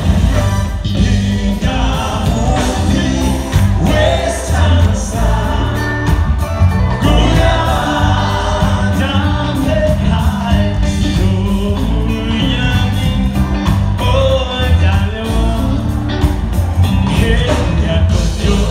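Live band music with a singer, loud and continuous, over a heavy bass line.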